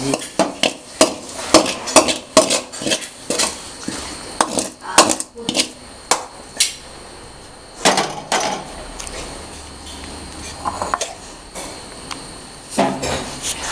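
A spoon clinking, knocking and scraping against a cooking pot in quick, irregular strokes as the cooked vegetable curry is spooned out into a serving dish. The knocks thin out after about seven seconds.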